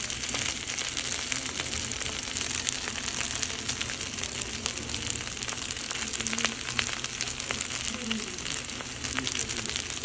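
Beef fried rice with gravy sizzling on a hot sizzling plate: a steady hiss with many small crackles and pops.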